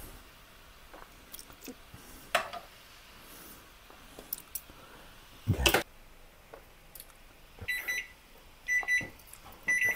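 Cookware clicking as asparagus is lifted from a pan onto a plate, with one sharp knock about halfway through. Near the end, three short high electronic beeps about a second apart come from a kitchen appliance.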